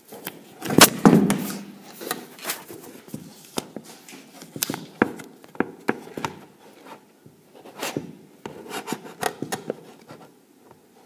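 Handling noise on a hand-held phone's microphone: irregular rubbing and rustling with scattered clicks and taps, loudest about a second in.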